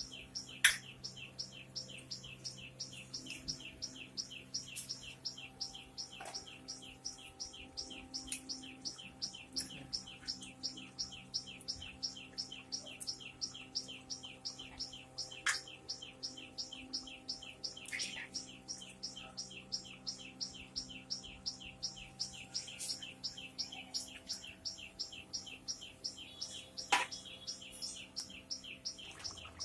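A small bird calling in a fast, even series of short high chirps, about three to four a second, without a break, over a steady low hum.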